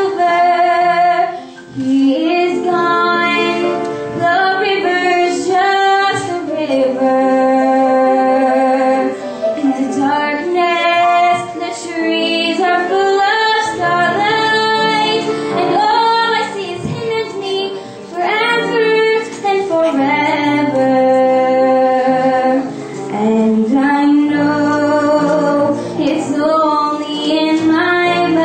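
A teenage girl singing a slow solo song into a microphone, holding long notes between short breaths.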